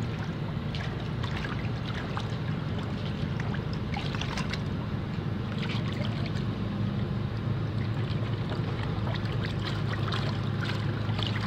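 A machine running with a steady low hum, with irregular rustling and small ticks over it.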